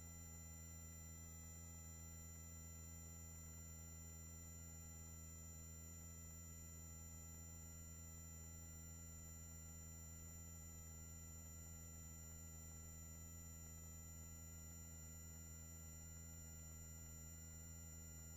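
Near silence on the helicopter's intercom audio feed: only a faint, steady hum made of several constant tones.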